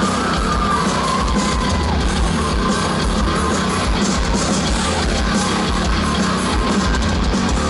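A heavy metal band playing live through a festival PA, with distorted electric guitars and drums, heard from within the crowd.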